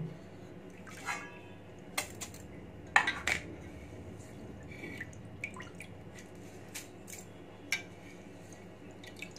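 Rice being washed by hand in water in a stainless steel bowl: water dripping and sloshing, with scattered sharp clinks against the steel, the loudest about three seconds in.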